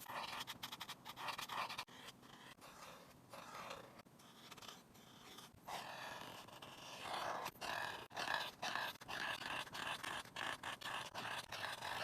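Pen scratching across paper in quick repeated strokes, as when drawing or shading, busier and louder in the second half.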